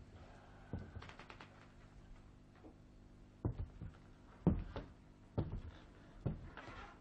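Footsteps of a man in shoes walking across a wooden floor: irregular knocks about half a second to a second apart, the loudest around the middle, over a faint steady low hum.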